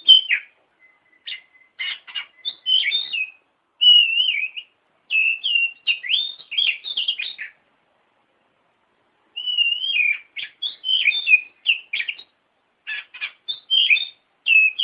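Oriental magpie-robin (kacer) singing: varied whistled notes mixed with quick sweeping chirps in phrases, with a pause of nearly two seconds in the middle. This is the song used as trigger song to set a reluctant magpie-robin singing.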